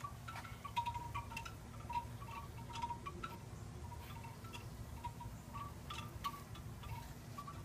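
Light, irregular tinkling of short ringing tones, each a brief strike with a little ring, over a faint low steady hum.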